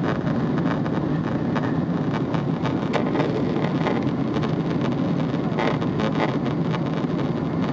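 Boeing 777 cabin noise heard from a passenger seat: a steady rumble of the jet engines and rushing air as the airliner climbs out after takeoff.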